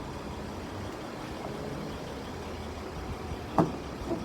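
Steady low rumble like a vehicle idling, with a sharp click about three and a half seconds in and two lighter knocks near the end.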